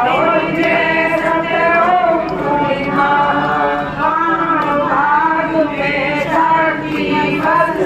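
A group of worshippers singing a Hindu aarti hymn together, several voices in one continuous melody.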